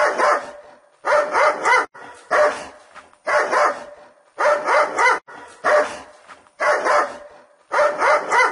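Dog barking in quick runs of two or three barks, the runs repeating about once a second, ending abruptly.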